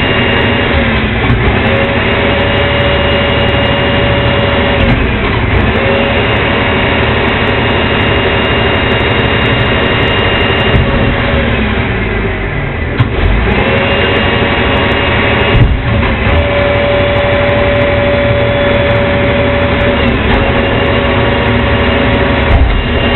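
Leach rear-loader garbage truck's diesel engine revving up and holding high speed for stretches of a few seconds, then dropping back, several times, with a steady whine from the hydraulics, as the packer's arms tip and shake a dumpster into the hopper and lower it. Two sharp knocks come about halfway through.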